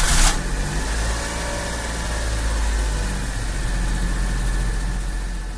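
Car engine idling steadily just after starting, with a louder rush in the first moment, fading out near the end.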